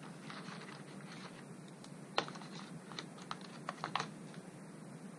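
Light clicks and taps with a faint rustle as the phone's box contents and cables are handled: one sharper click about two seconds in, then a quick run of small clicks a second later.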